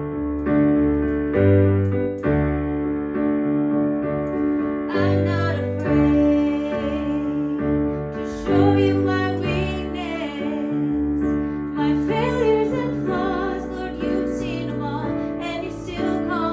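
Piano or keyboard playing sustained chords over a moving bass line, with a woman singing over it from about five seconds in.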